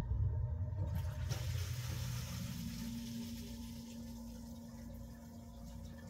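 An AC sump pump switches on abruptly, powered from a 12-volt battery through an inverter, and runs drawing about 470 watts, with water rushing as it pumps out the pit. A steady hum joins about two and a half seconds in.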